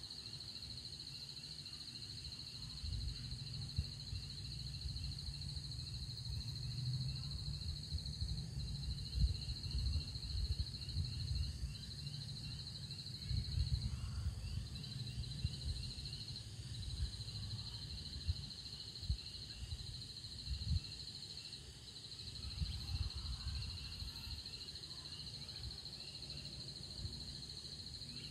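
Insects chirring in a steady high-pitched drone, with a fainter run of quick repeated chirps beneath it, over irregular low rumbling gusts of wind on the microphone.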